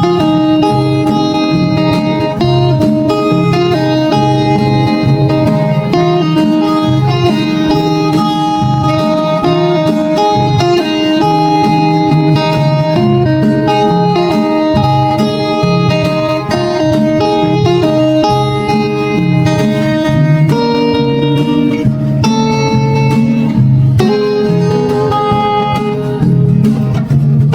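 Background instrumental music led by a plucked guitar, with a steady bass line.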